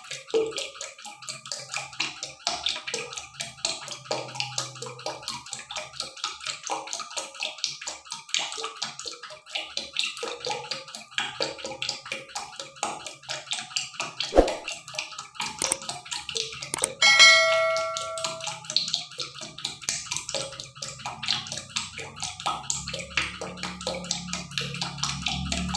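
Pot of duck wings in coconut cream bubbling and crackling at a simmer, a dense, continuous patter of small pops. About 14 s in there is a sharp knock, and about 17 s in a loud metallic clang that rings briefly.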